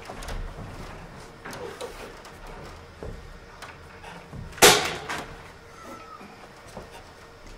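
One loud, sharp smack a little past halfway through, followed a moment later by a fainter knock, over faint shuffling and small clicks.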